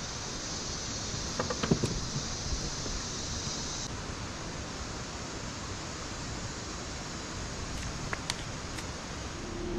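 Pickup truck pulling up nearby: a steady rushing noise with a few short knocks about a second and a half in, and a steady engine hum setting in near the end.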